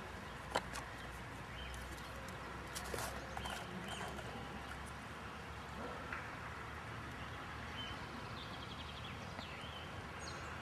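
Small clicks and taps of hands handling fishing tackle and bait, with a sharp click about half a second in, over a steady quiet outdoor hiss; a few faint high chirps in the second half.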